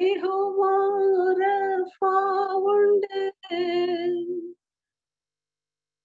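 A woman singing a Tamil Christian song alone and unaccompanied, in short held phrases. The singing stops about four and a half seconds in.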